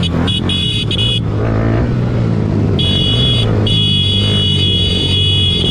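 Motorcycle engine running steadily during a ride, with a shrill high-pitched tone sounding on and off over it.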